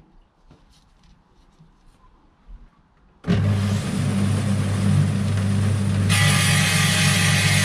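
Bench-top circular stone saw switching on about three seconds in, its motor running with a steady hum. A couple of seconds later a loud high-pitched grinding hiss joins the hum as the blade bites into a fossil nodule and starts cutting the stone.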